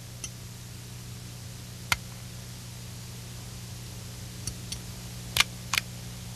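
A few short clicks and taps as a microscope's slide and knobs are handled: one sharp click about two seconds in, and a louder pair near the end. They sit over a steady background hiss and low hum.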